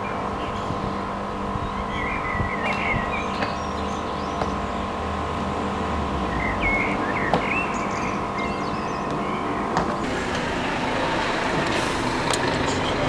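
A steady mechanical hum made of several fixed tones, with a few short chirps over it. About ten seconds in, the hum gives way to a rising rush of traffic-like noise.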